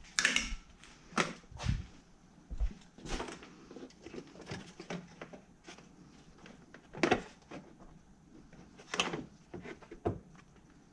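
Scattered knocks, clicks and scrapes of hands and tools working on car parts, with the loudest knocks about seven and nine seconds in.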